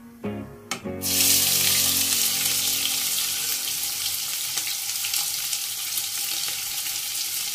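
Chopped onions dropped into hot mustard oil in a kadhai, sizzling loudly as they hit and then frying steadily, easing off a little. The sizzle starts suddenly about a second in.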